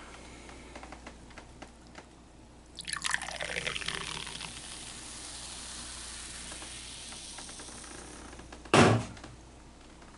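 Fizzy soda poured into a cup, starting suddenly about three seconds in, followed by a steady carbonation hiss that slowly fades. Near the end there is a single loud thump.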